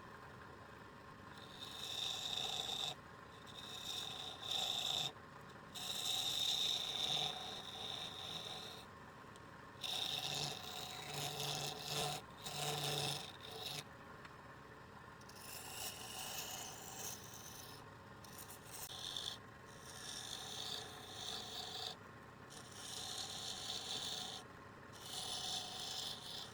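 Tool or abrasive scraping against wood spinning on a lathe, in repeated passes of one to three seconds with short breaks between them, each pass carrying a steady high ring.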